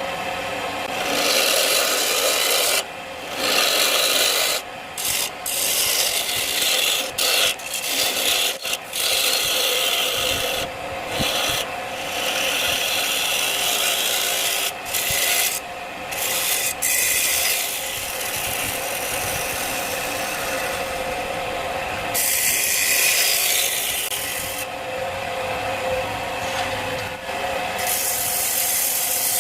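Wood turning on a lathe: a tool scraping against the spinning wood, with many short breaks where it lifts off the workpiece, over a faint steady lathe hum.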